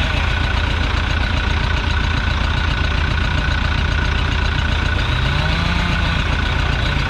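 Heavy-equipment engine running steadily, close and loud, with its pitch climbing briefly about five seconds in as it takes up load or revs.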